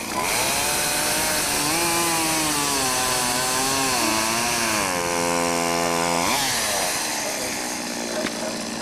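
Small engine running at high revs, its pitch wavering up and down, then dropping sharply about six seconds in and settling to a lower, steady hum.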